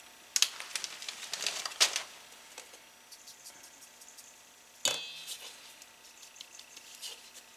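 Plastic bag crinkling as powdered cake mix is poured into a wire-mesh sieve. The sieve is then shaken and tapped against a metal mixing bowl: faint quick ticks and one sharp metallic clink about five seconds in that rings briefly.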